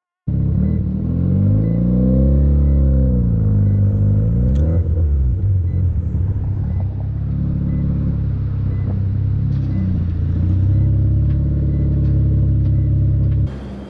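Mazda RX-7's turbocharged 13B rotary engine running under way, its revs rising and falling over a couple of seconds, then running low and steady as the car rolls in and idles. The engine sound cuts off suddenly near the end.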